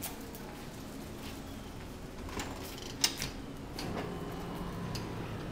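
A glass entrance door being opened: a few light clicks, then one sharp click about three seconds in, followed by a steady low hum.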